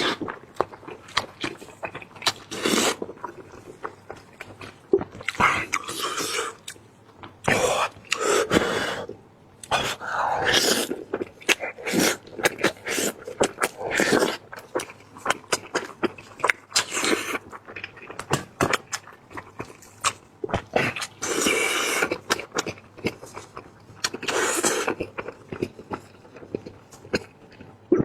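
Close-miked eating of braised lamb head: chewing, tearing and sucking meat off the bone, with irregular wet clicks and short noisy bursts.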